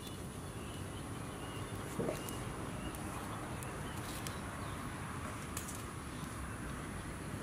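Outdoor background noise with faint bird chirps scattered through, and a few soft clicks and rustles as nylon trimmer line is handled.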